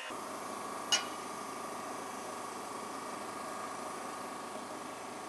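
Steady electrical hum with a faint hiss, broken once about a second in by a single sharp metallic clink.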